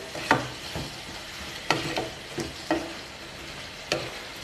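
Perforated wooden spatula scraping and knocking against a kadai as chunks of mixed vegetables in mustard paste are stirred, about seven strokes at an uneven pace, over a steady light sizzle of frying.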